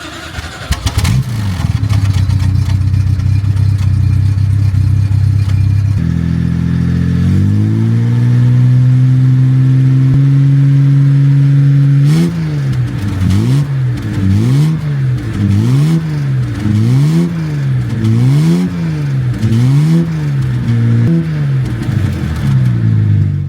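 Car engine running at a steady speed, then its revs climb and hold higher. About halfway through it is revved up and down over and over, about once a second, with abrupt jumps between the sections.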